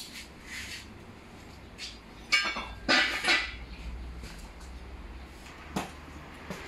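Metallic clinks and clatter, with the loudest cluster of sharp clanks and rattles about two and a half to three and a half seconds in and a few single clicks around it.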